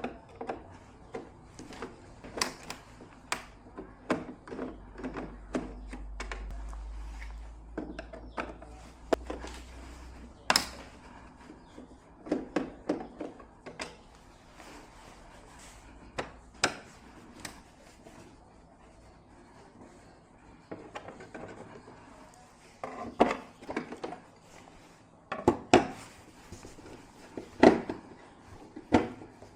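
Hard objects being handled and set down: irregular clicks, taps and knocks, with a cluster of louder knocks near the end, and a low hum for a few seconds in the middle.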